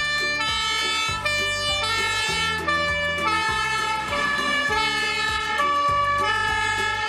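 Fire engine siren sounding, a pitched tone stepping back and forth between notes every half second or so.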